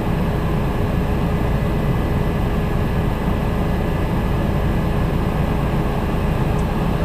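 Helicopter in flight heard from inside the cabin: loud, steady rotor and engine noise, mostly a low rumble, with faint steady whines above it.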